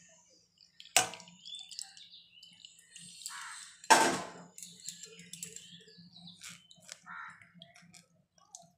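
Steel kitchenware knocking sharply twice, about a second in and again about four seconds in. Crows caw and small birds chirp in the background.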